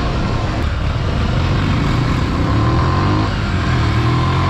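Bajaj Boxer CT 100's single-cylinder four-stroke engine running as the motorcycle rides along, with wind noise over it. The engine pitch climbs for a second or so from about two seconds in and drops back a little after three seconds.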